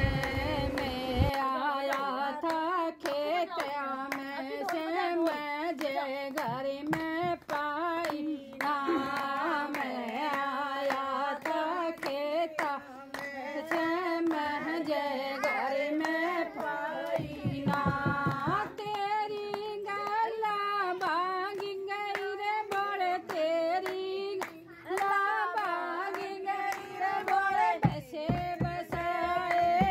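Women singing a folk wedding song together, keeping time with steady hand claps in place of the dholak drum.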